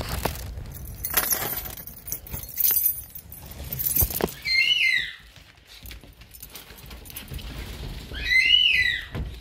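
A bunch of keys jangling and clicking in a door lock as the door is unlocked and opened. This is followed by two short, high squeals that rise and fall in pitch, about four seconds apart.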